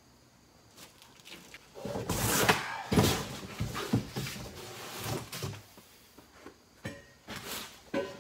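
A Curt class 5 steel receiver hitch being lifted out of its cardboard shipping box: cardboard rustling and flexing with thunks as the metal knocks against the box, for about three and a half seconds, then a few separate lighter knocks near the end.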